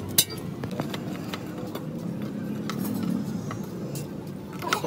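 Steel rod knocking and scraping against a crucible of molten metal as the melt is stirred and skimmed, with a sharp knock just after the start and another near the end, over a steady low hum.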